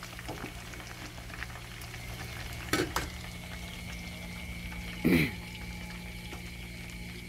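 Frog pieces frying in hot oil in a wok, a steady sizzle, with two brief knocks about three and five seconds in.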